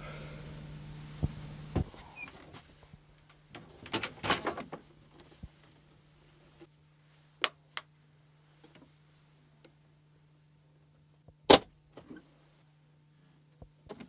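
A hard-shell suitcase being opened and rummaged through: a cluster of clicks and knocks about four seconds in, then scattered single clicks, and one sharp, loud click about eleven and a half seconds in. A steady low hum runs underneath.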